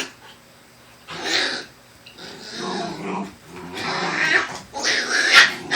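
Black Shiba Inu dogs growling in several short bouts with brief pauses between them, the last one the loudest.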